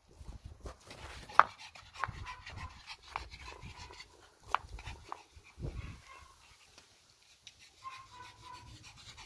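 Pomeranian panting, with a few sharp clicks, the loudest about a second and a half in.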